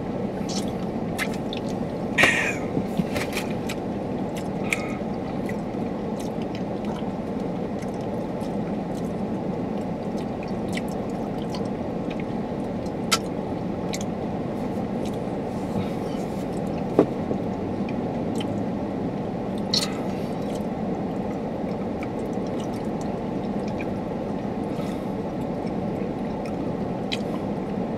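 Steady low hum inside a stationary car's cabin. A few brief clicks and small handling noises break it now and then, the loudest about two seconds in, around a drink from a soda can near the start.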